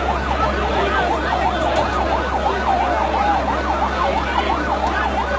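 Emergency vehicle siren yelping, its pitch sweeping quickly up and down about three times a second, over the steady din of a large crowd.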